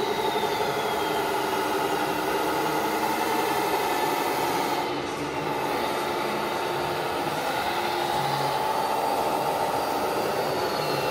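Several radio-controlled model construction machines running at once: a mix of motor and gearbox whines whose pitch slides slowly up and down.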